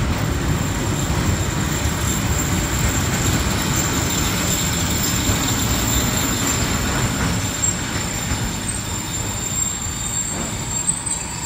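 Freight train of container wagons rolling through the station: a steady rumble of wheels on the rails with a thin, high-pitched squeal held over it, easing off slightly in the last few seconds.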